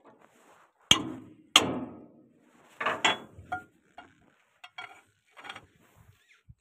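Two loud, sharp metal-on-metal knocks about a second in, each ringing briefly, followed by several smaller clanks and light clicks, from a long steel pipe and tools being worked on an excavator's hydraulic valve block.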